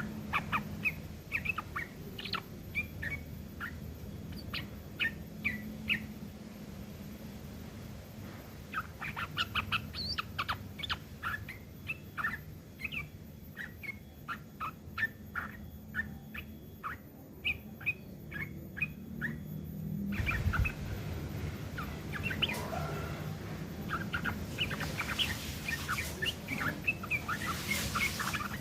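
Sooty-headed bulbul (trucuk) giving rapid, harsh chattering runs of short, sharp notes with long-tailed shrike (cendet) phrases worked in. There is a brief pause about a third of the way through, and the background grows louder near the end.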